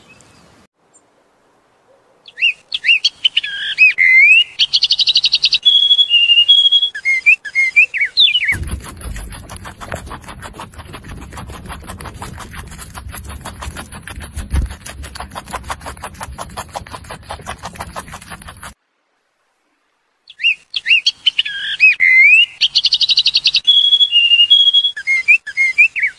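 Rainbow lorikeet calls: quick gliding whistles, trills and screeches, heard twice in identical six-second runs. Between them is about ten seconds of fast, dense clicking over a low rumble, which stops abruptly.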